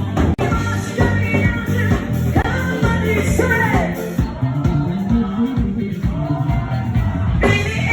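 Pop-rock song with a singer's voice over drums and bass guitar.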